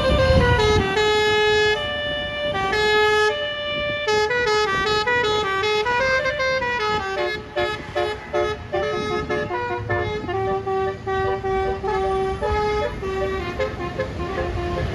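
Basuri 'telolet' bus air horn playing a melody: a run of stepped musical notes, some held and some quick, with a few short slides in pitch.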